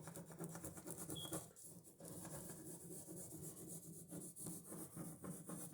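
Ballpoint pen scribbling rapidly back and forth on paper, a steady scratchy rubbing, as a 20-year-old dried-out pen is tried to see whether its ink flows again.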